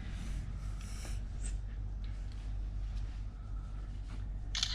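Light handling noises, small rustles and clicks, from the new brake pads and parts being handled, over a steady low hum. A short hissing burst comes near the end.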